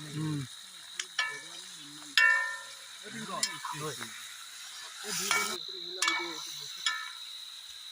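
A metal utensil clinking against a cooking pot during camp cooking: several sharp ringing strikes, the loudest about two seconds in, with low voices murmuring between them.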